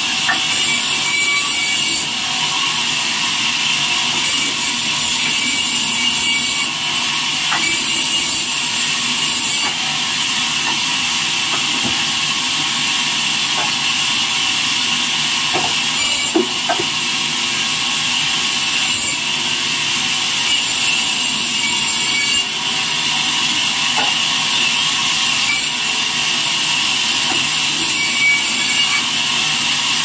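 Vertical band saw ripping rain tree wood: a steady high whine of the blade cutting through the timber, with a few short knocks of wood along the way.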